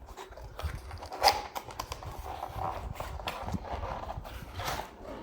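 A wired keyboard being handled and taken out of its packaging: rustling and scattered light knocks, with one sharper knock about a second in.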